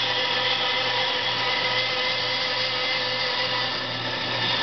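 Inca bandsaw running steadily with an even hum while a turned wooden piece is fed into the blade and cut.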